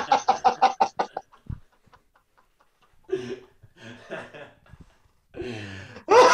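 Two men laughing hard. A fast run of ha-ha pulses dies away in the first second, and after a short near-silent pause there are more bursts of laughter, rising again loudly near the end.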